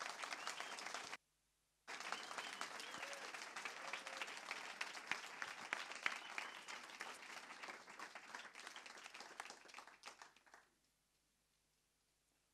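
Audience applauding. The clapping breaks off for a moment about a second in, resumes, and dies away about ten seconds in.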